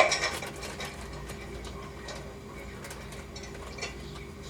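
Dishes and cutlery clattering in an open dishwasher as a toddler handles the racks, loudest right at the start, then trailing off into scattered light clicks and knocks over a steady low hum.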